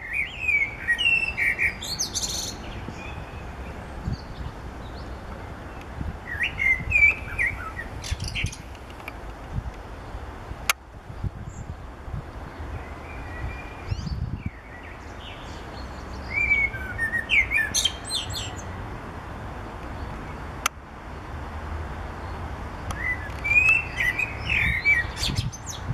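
Male common blackbird singing: four separate phrases several seconds apart, each a low, fluty warble ending in a high, squeaky twitter.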